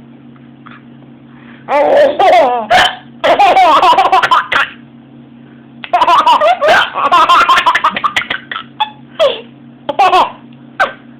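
A young child laughing in several high-pitched bouts at someone's hiccups, with short hiccups between the bouts.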